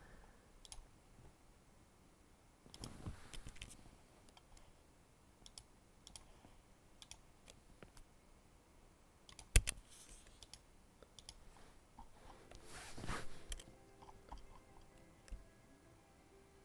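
Faint computer mouse clicks now and then, with one sharper click near the middle, and a couple of short soft rustles.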